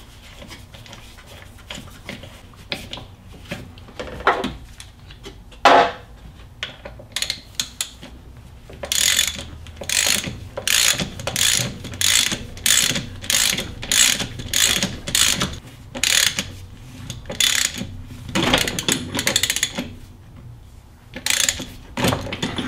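Socket ratchet clicking as it turns the nut of a harmonic-balancer installer tool, pressing an ATI Super Damper onto the crankshaft nose. A few separate knocks come first, then about eleven seconds of steady back-strokes, roughly one every half to two-thirds of a second, with a few more clicks near the end.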